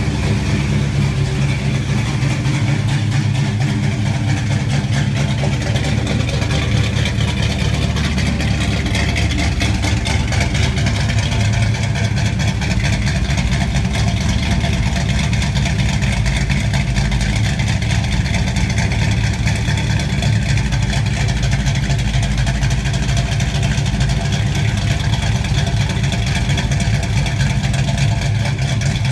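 1957 Chevrolet pickup truck's engine idling steadily, heard through its twin exhaust pipes during a run test.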